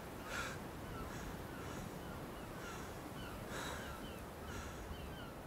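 Birds calling: short harsh calls repeated about once a second, with quick little falling chirps between them, over a low steady rumble.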